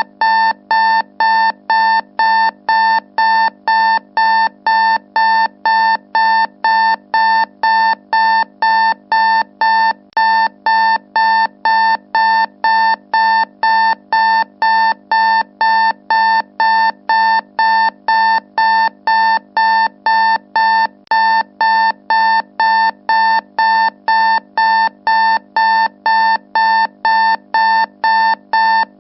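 Alarm clock beeping: a loud, steady-pitched beep repeating evenly, about two beeps a second, without change.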